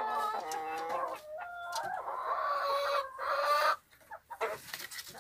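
Chickens calling in a coop: a run of short clucking calls that ends in one long, drawn-out call for nearly two seconds, which stops about four seconds in, followed by a few faint clucks.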